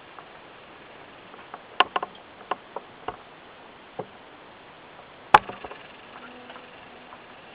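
A hand-held lighter being struck over and over: scattered sharp clicks at uneven intervals, bunched around two seconds in, with the loudest click about five seconds in.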